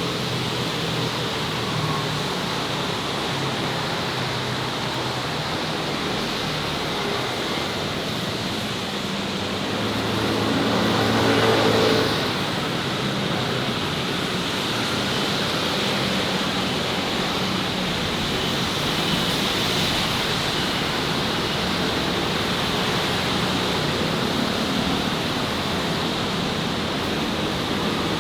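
Steady city street traffic noise, with one vehicle passing close and louder about ten to twelve seconds in.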